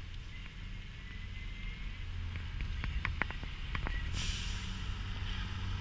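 Car driving on a wet road: a steady low engine and road hum, a few sharp clicks or rattles in the middle, and a hiss of tyre noise that starts suddenly about four seconds in.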